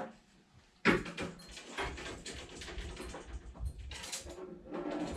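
A sharp knock about a second in, then rustling, clattering and low bumps as things are handled and put away in a wooden cupboard.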